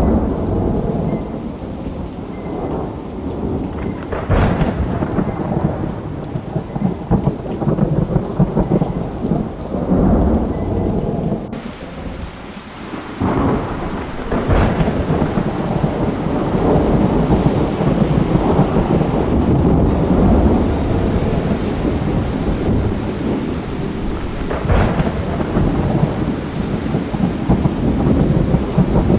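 Thunderstorm: steady rain with thunder rumbling continuously, and sharper thunder cracks about four, fourteen and twenty-five seconds in.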